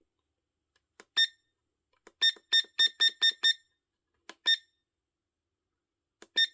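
Wireless-charger alarm clock beeping as its buttons are pressed to set the date. Each short, single-pitched beep follows a faint button click: one beep, then a quick run of six in about a second and a half, then two more spaced out.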